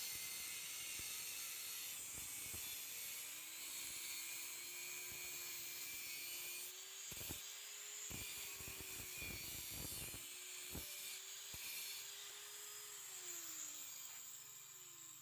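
Steady abrasive scraping hiss of the saw-blade steel being worked into a knife, with a few sharp knocks about halfway through and a faint hum that drops in pitch near the end.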